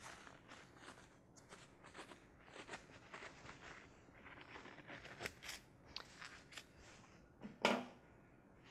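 Faint rustling and crinkling of plastic gloves and a short-stretch cohesive compression bandage as it is wrapped and smoothed around a leg, with one louder brush near the end.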